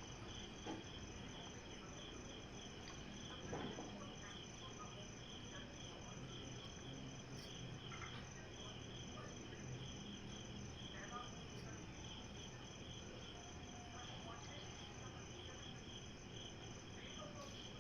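Crickets chirping steadily in a fast, even trill, with a few faint scattered clicks.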